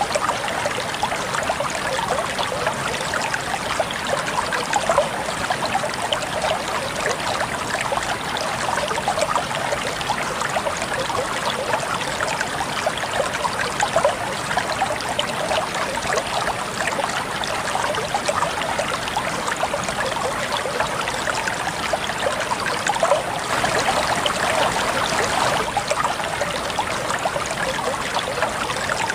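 Water flowing steadily over stones, a continuous babbling and trickling with no pauses, a little fuller about three quarters of the way through.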